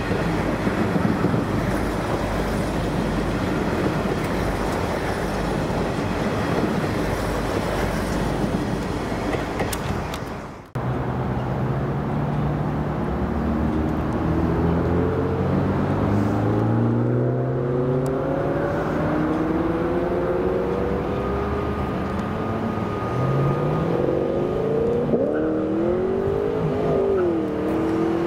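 A V/Line Sprinter diesel railcar runs past close by with a loud rumble and wheel noise that fades away, then a sudden cut. After that a Comeng electric multiple unit moves off with an electric motor whine that climbs steadily in pitch as it gathers speed. The climbing whine comes twice.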